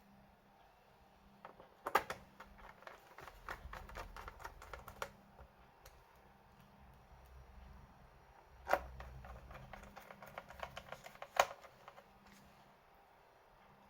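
Typing on a computer keyboard: two bursts of rapid key clicks, one starting about two seconds in and one about nine seconds in, each lasting around three seconds.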